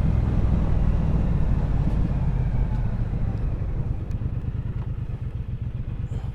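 Triumph Bonneville Bobber's 1200 cc parallel-twin engine running at low revs as the bike slows and pulls over. From about four seconds in it turns quieter, with its firing pulses more distinct as it settles towards idle.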